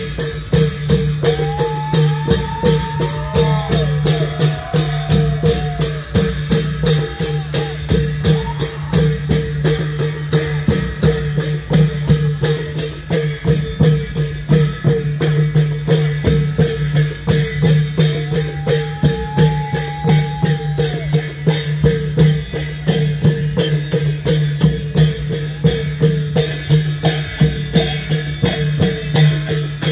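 Klong yao long drums played by a troupe in a fast, even beat, over a held drone. A wavering melody line comes in twice.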